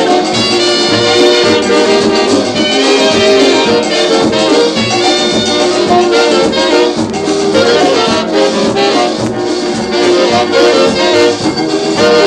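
Calypso from a 45 rpm vinyl single: a dance orchestra's brass horns lead over a steady, regular beat.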